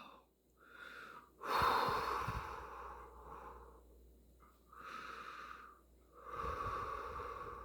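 Heavy, noisy breaths from a person in a bout of severe hiccups: a long breath starting abruptly about a second and a half in and trailing off, a fainter one around five seconds, and another long one near the end.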